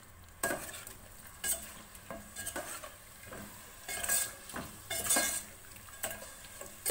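Metal spoon stirring a wet mixture of beef, chopped tomatoes and yogurt in a steel pot, scraping and clinking against the pot in irregular strokes.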